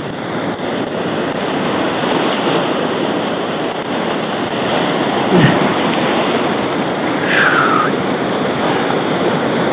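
Waves breaking and washing over rocks, a steady rush of surf with wind on the microphone. A short thud comes about halfway through, and a brief falling squeak a couple of seconds later.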